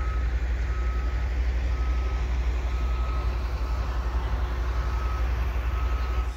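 Construction vehicle's reversing alarm beeping about once a second, over a heavy steady low rumble.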